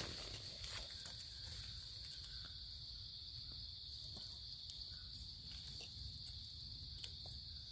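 Faint, steady high-pitched drone of forest insects, with a few light ticks and rustles from hands and a knife working in the leaf litter.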